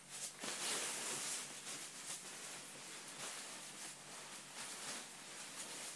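Sleeping bag fabric rustling and swishing as it is shaken out and bunched up by hand, a little louder in the first second or so.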